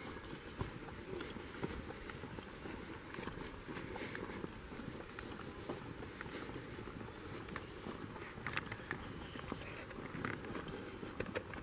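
Footsteps walking along a wet asphalt road, a steady run of soft scuffing steps.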